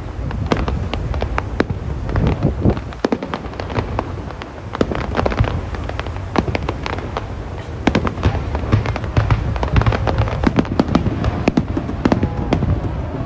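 Fireworks going off in quick, irregular succession: many sharp cracks and pops over a continuous low rumble.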